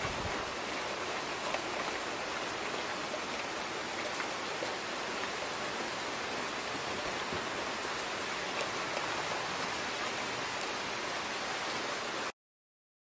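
Steady rain falling, an even hiss that cuts off abruptly near the end.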